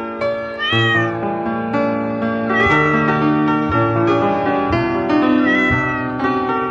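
A cat meowing three times, each meow rising and falling in pitch, over background music with sustained melodic notes.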